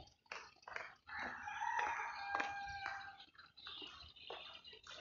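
A single long, drawn-out bird call lasting about two seconds, starting about a second in, with a few faint knocks just before it.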